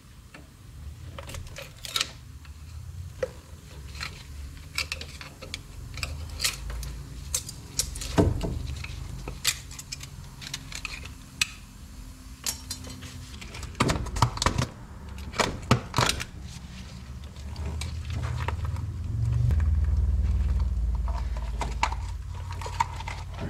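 Hand tools working at a greasy CV axle boot: scattered small metal clinks and scrapes, with a cluster of sharper clicks about two-thirds of the way through. Near the end there is a louder low rumble as the rubber boot is handled and peeled back.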